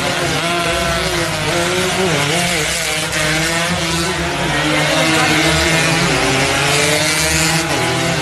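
Racing motorcycle engines revving up and down as the bikes run through standing water at full throttle, over a steady hiss of rain.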